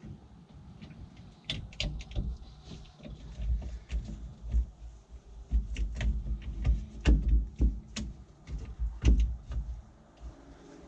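Scattered clicks and light metallic knocks of hand work on a 322 excavator joystick's pilot valve as the plungers are pushed back into their bores. There are a few sharper knocks about seven and nine seconds in, over a low rumble.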